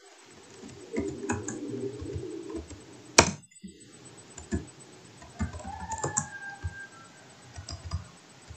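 Scattered keystrokes on a computer keyboard while code is being edited, with one sharper click about three seconds in.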